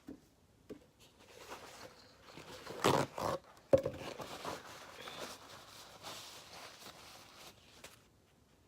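Rustling, scraping and handling noises close to the microphone, loudest about three seconds in, with a single sharp knock just after.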